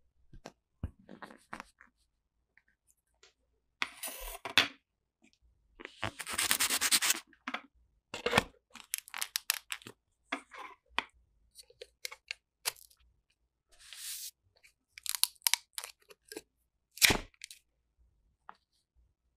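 Kinetic sand being pressed and molded into bricks with a plastic brick mold: a run of short gritty rustles and crumbling sounds with sharp clicks and taps of the plastic mold, the longest rustle about a second long, around six seconds in.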